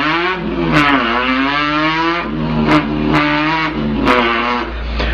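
A boy imitating a revving import car engine with his voice. The pitch climbs over the first second, holds, then drops to a lower, steadier drone, broken by a few short clicks like gear changes.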